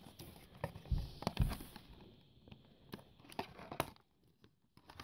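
Cardboard packaging and its tray being handled while an action figure is slid out, with scattered rustles and light clicks and a couple of soft thumps about a second in.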